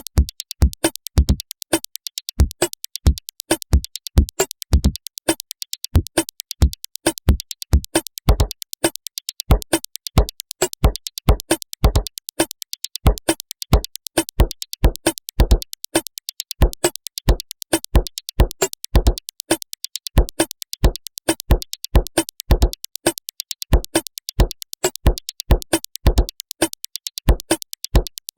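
Electronic beat loop made from chopped samples of a single piece of audio: punchy low hits in an uneven pattern under a fast, even high ticking.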